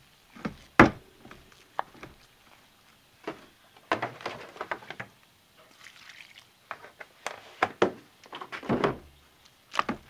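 A wooden spoon stirring thick, overcooked hot-process lard soap paste in a ceramic crock-pot liner: irregular knocks of the spoon against the crock, the sharpest about a second in, and scraping as it drags through the stiff paste.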